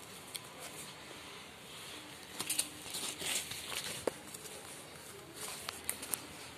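Cardboard and paper being handled: scattered rustles, with a few sharp ticks and taps as the decorated frame is picked up and moved about.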